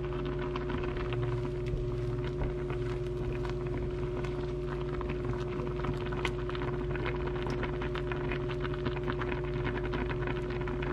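Water boiling around shredded potato strips in a pan: a steady crackle of small popping bubbles over a constant low hum.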